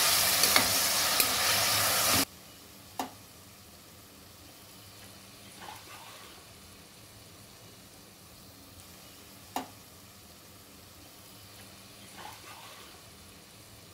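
Chopped tomatoes sizzling in hot oil in an aluminium pressure cooker as they are stirred with a steel spoon. The loud sizzle cuts off abruptly about two seconds in and gives way to a faint hiss, with a couple of sharp spoon clinks against the pot and soft scrapes of stirring.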